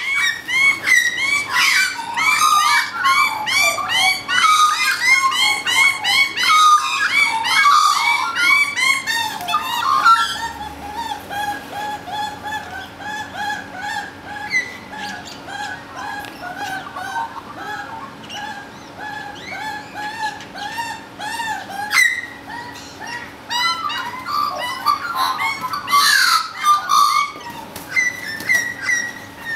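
Australian magpies calling loudly during a territorial fight: a dense run of overlapping rising-and-falling calls, settling about ten seconds in into a steadier string of repeated shorter calls, with another loud outburst of calls near the end.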